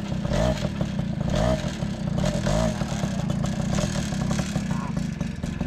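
Tomos moped's two-stroke engine running through a new aftermarket exhaust. The throttle is blipped about once a second for the first few seconds, each rev rising and falling, and then the engine is left to run at a steadier idle.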